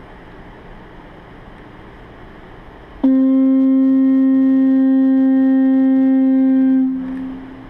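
A single low, steady horn-like tone rich in overtones starts suddenly about three seconds in, holds for nearly four seconds and then fades; before it only a low hush.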